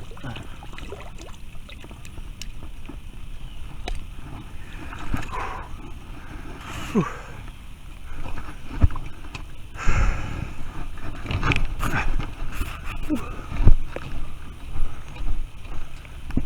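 Low steady rumble of wind and river on the microphone, with scattered thumps, knocks and splashes from a caught carp being handled at the water's edge, busier and louder in the second half.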